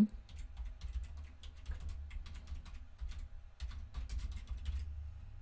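Typing on a computer keyboard: a quick run of key clicks, with a short pause a little past three seconds in, stopping shortly before the end.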